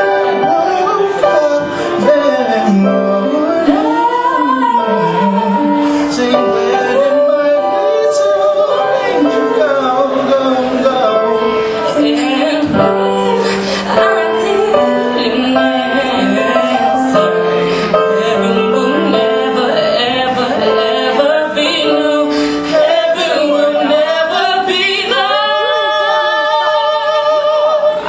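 A singer vocalizing wordless, sliding melodic runs over backing music, ending on a long held note with vibrato.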